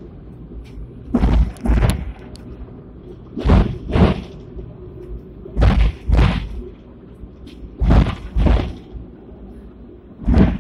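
Wheels of a Hong Kong double-decker tram clacking over rail joints as it runs: pairs of heavy clunks about half a second apart, repeating about every two seconds, over a steady low running rumble.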